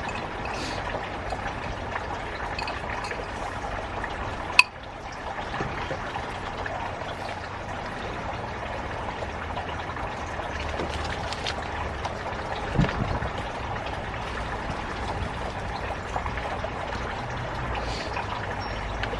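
Steady trickling, pouring water, with one sharp click about four and a half seconds in and a duller knock near thirteen seconds.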